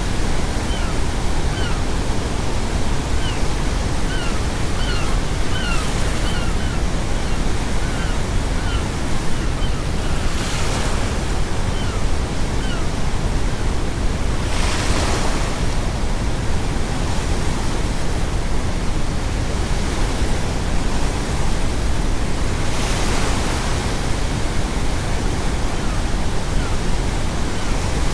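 Steady brown noise under ocean waves, with several waves breaking and washing in a few seconds apart. Seagulls call in short, falling cries, many in the first third and a few later.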